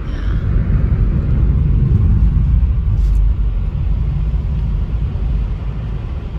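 A car driving along, a loud low rumble of engine and road noise. It is loudest around the middle and eases a little toward the end.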